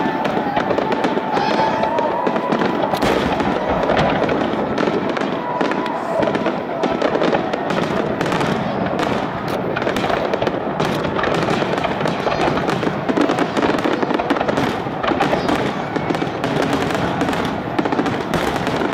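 Fireworks grand finale barrage: aerial shells bursting one on top of another in an unbroken run of bangs and crackling.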